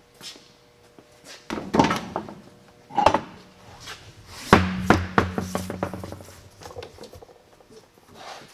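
A few thunks and knocks as a Ford F-150's alloy wheel and tire are pulled off the hub and handled. The heaviest thunk comes about halfway through, followed by a short low ring.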